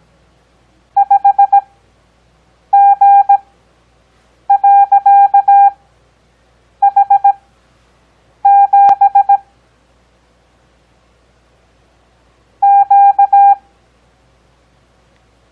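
Morse code practice tone: a steady single-pitch beep keyed on and off, with characters sent at 17 words per minute and spread out by long Farnsworth gaps to an overall 6 words per minute. Six characters sound, each a short cluster of dits and dahs, with gaps of one to three seconds between them.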